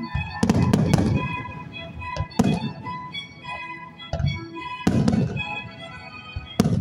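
Aerial firework shells bursting in loud bangs with rumbling tails. There is a cluster of booms within the first second, another at about two and a half seconds, a pair around five seconds and one just before the end, all over music playing throughout.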